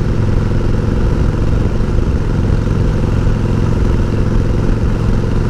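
1988 Harley-Davidson Heritage Softail's 1340 cc Evolution V-twin running steadily at an even pitch, with a steady rushing noise over it.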